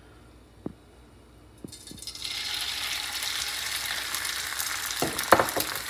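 A raw egg lands in hot fat in a light cast iron skillet and starts sizzling about two seconds in, a steady frying hiss that carries on. A few sharp clinks sound near the end.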